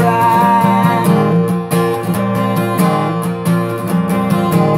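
Acoustic guitar strummed in a steady rhythm between sung lines of a folk song. A sung note is held over the first second, then the guitar plays on alone.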